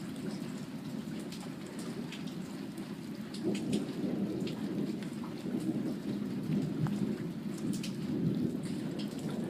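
Thunderstorm: steady light rain with individual drops striking close by, over a low rolling rumble of thunder that swells about three and a half seconds in and again near the end.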